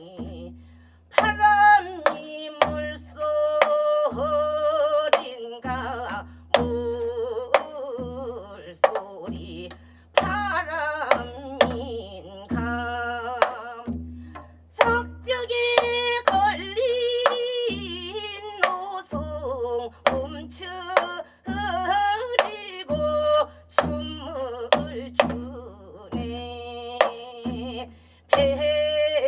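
A woman sings Gyeonggi folk song (norae-garak and changbu taryeong) in the wavering Gyeonggi minyo style, accompanying herself with hand strokes on a janggu hourglass drum.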